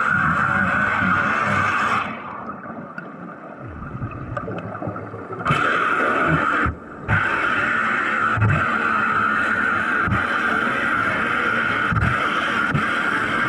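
Underwater wet-welding arc hissing and crackling steadily. It cuts out about two seconds in, comes back a few seconds later, and drops out again briefly around the middle. Low gurgling thuds sound throughout.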